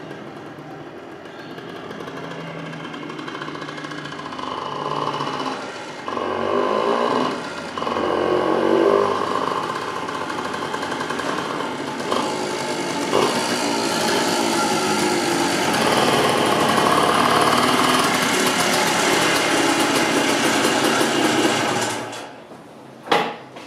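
1978 Suzuki TS125's single-cylinder two-stroke engine running on a ride, its revs rising and falling and the sound growing louder, until it cuts off suddenly near the end. A few sharp clicks follow.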